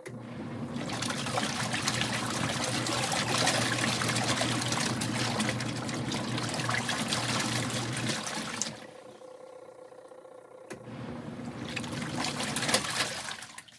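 Kuppet portable washing machine on its wash cycle: the motor-driven impeller churns water and clothes with a low motor hum, pauses for about two seconds, runs again, then stops near the end as the wash finishes.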